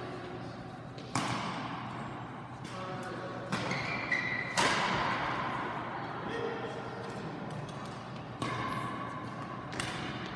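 Badminton rackets striking a shuttlecock: sharp, echoing cracks a second or a few seconds apart, reverberating in a large sports hall, with voices in the background.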